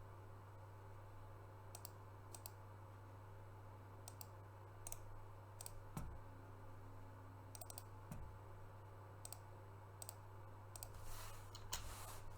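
Scattered single clicks of a computer mouse, a dozen or so at irregular intervals, over a low steady hum.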